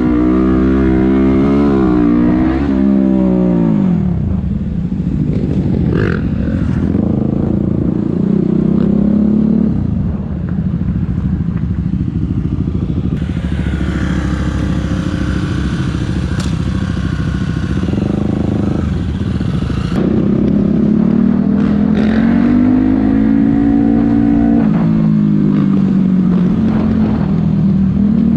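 Supermoto motorcycle engine under way, its pitch climbing and falling again and again as the throttle is opened and closed through the gears.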